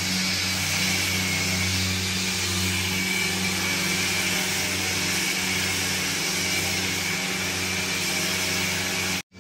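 Electric power tool motor running steadily with a low hum and an even hiss, cutting off abruptly near the end.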